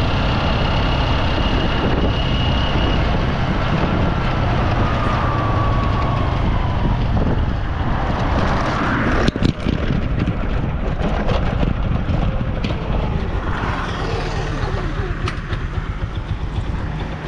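Steady low rumble of a running motor vehicle engine, with a sharp knock about nine seconds in.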